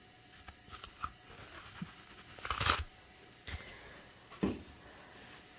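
Toilet paper being handled and torn off the roll: light rustles and clicks, then a louder short tear about two and a half seconds in, followed by a couple of softer rustles.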